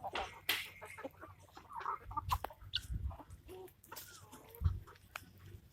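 Free-range country chickens clucking in short, scattered calls, mixed with many small sharp clicks and a few low knocks.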